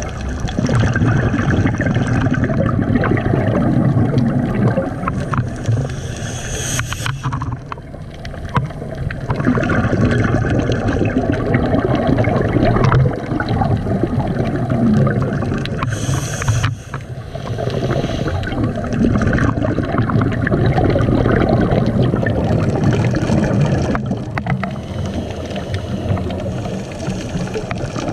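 Scuba regulator exhaust bubbles gurgling and rushing, heard underwater through the camera housing. The bubbles come in long surges with short quieter breaks between breaths, about every eight or nine seconds.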